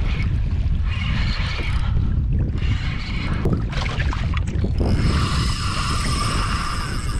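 Wind buffeting the microphone over water splashing around a kayak. About five seconds in, a steady high whirring starts and carries on.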